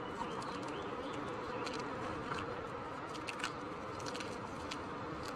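Gym chalk being crumbled by gloved hands, giving scattered soft crunches and clicks, over a steady buzzing background noise.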